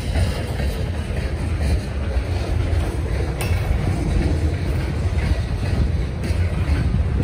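Freight train cars, covered hoppers and autoracks, rolling past: a steady low rumble of steel wheels on rail, with one sharp click about three and a half seconds in.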